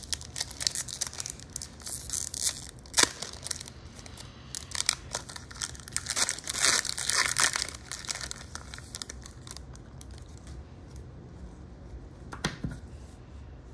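Foil Pokémon booster pack wrapper crinkling and tearing open in the hands. The crackling is dense for most of the time and thins out to a few scattered crinkles near the end.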